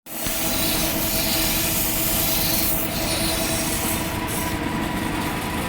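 A scissors blade ground on a motorised sharpening wheel: a steady grinding hiss with a constant hum underneath.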